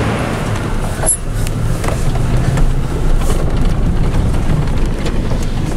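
In-cabin rumble of a 2016 Chevrolet Tahoe driving over a rough dirt track: steady low engine and tyre noise, with a couple of knocks about one and two seconds in.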